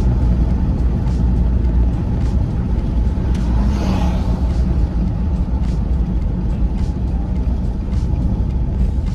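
Steady road and engine noise of a car being driven, heard from inside the cabin with the window down.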